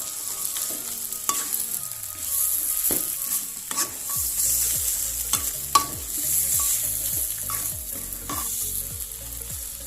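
Fried jengkol pieces being stirred through a chilli sauce in a hot pan: steady frying sizzle, with irregular scrapes and knocks of the stirring utensil against the pan.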